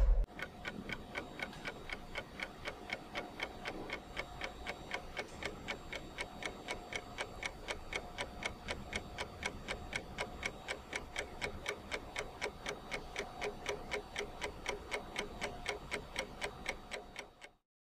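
Rapid clock-like ticking sound effect, about four ticks a second, over a faint steady tone. It opens on a low hit and cuts off suddenly near the end.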